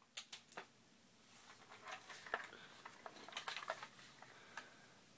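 Near silence: a few faint, light clicks just after the start, then scattered faint ticks and rustles.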